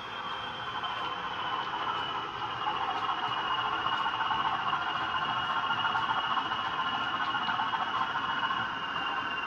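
Bachmann Class 20 OO-gauge model locomotive running with its DCC sound decoder, its diesel engine sound coming from the small onboard speaker. A high whine slowly drops in pitch, with faint regular clicks underneath.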